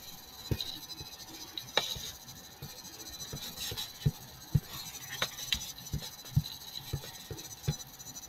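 Computer mouse clicks and desk handling noise: faint irregular clicks and soft taps over a steady hiss with a thin high tone.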